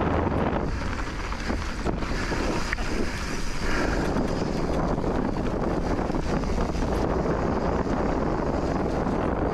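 Wind buffeting the microphone while riding an electric mountain bike on a rough trail: a steady rush of air with tyre and bike rattle underneath and scattered sharp clicks and knocks.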